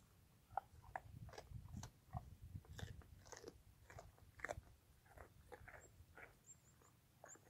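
Fallow deer chewing carrot chunks: a run of short, irregular crunches, some close together and some a second or more apart.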